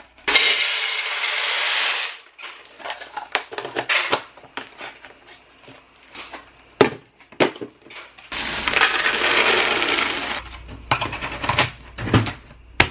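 Dry Cookie Crisp cereal poured into a clear plastic storage container, in two pours of about two seconds each, one just after the start and one about eight seconds in. Scattered handling clicks from the box and bag fall between them, and a sharp click near the end comes as the container's lid is pressed on.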